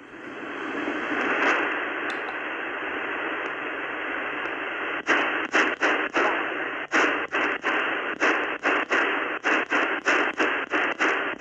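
An ATS-20 shortwave receiver hissing with band noise in USB mode on the 11-metre CB band, with no station tuned in. From about five seconds in, the hiss is broken by brief dropouts two to three times a second as the tuning knob is stepped up through the frequencies.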